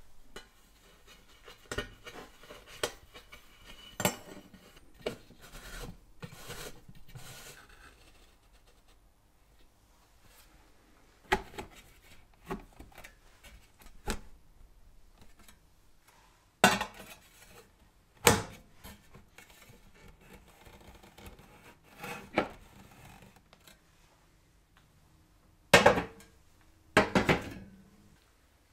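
Metal parts of a restored 1938 Tito Landi gasoline cooking stove being handled and fitted together: scattered clinks and knocks, with a few much louder ones, the loudest near the end.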